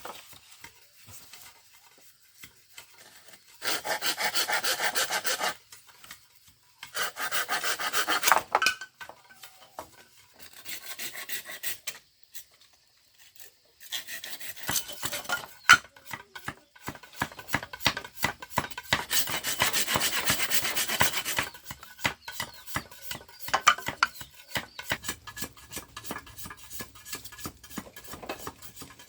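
Hand tools working bamboo: rough sawing or rasping strokes in bursts of a second or two. A longer busy stretch in the middle is full of short scraping clicks.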